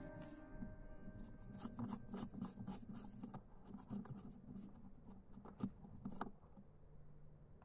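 Faint scratching and clicking of a plastic LED bulb being twisted into a plastic lamp holder, stopping about six seconds in.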